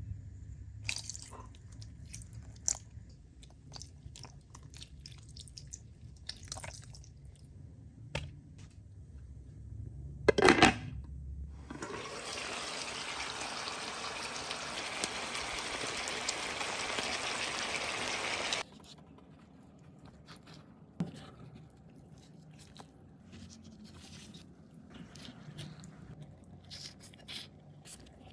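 Milkfish belly paksiw simmering in vinegar in a pan: a steady bubbling hiss that lasts several seconds and cuts off suddenly about two-thirds of the way through. Before it come scattered small clicks and one loud knock.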